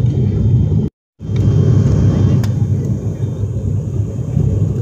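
Steady low drone of an ATR 72's twin turboprop engines and propellers heard from inside the passenger cabin during the climb. It cuts out briefly about a second in.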